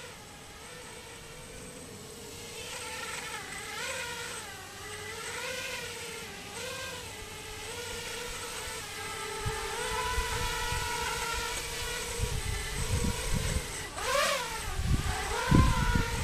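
Small quadcopter's motors and propellers whining in a low hover, the pitch wavering up and down instead of holding steady: the twitching the pilot hears when the quad runs on a 4S China Hobby Line lipo. Near the end the whine jumps sharply in pitch once, and low thumping rumbles come in over the last few seconds.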